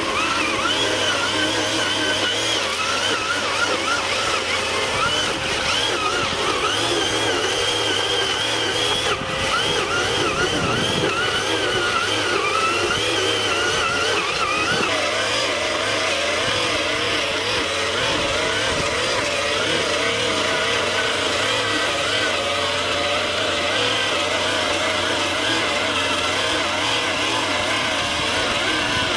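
Backpack brush cutter's small engine running fast, its pitch wavering up and down as the home-made weeding head fitted in place of the blade works through tall weeds in the rice paddy.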